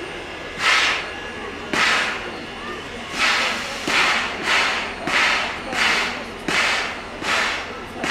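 Exhaust of a Soviet Em-class 0-10-0 steam locomotive chuffing at slow speed: sharp hissing beats of steam, about one a second, quickening slightly. A low crowd murmur runs underneath.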